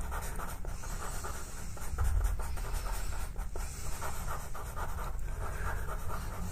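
Pastel pencil scratching on pastel paper in quick, short repeated strokes, building up darker shading.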